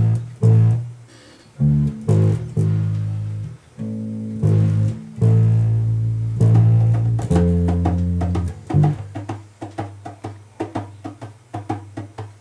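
Bass guitar playing long, low held notes that change every second or so. From about nine seconds in, it switches to a quicker run of short plucked notes.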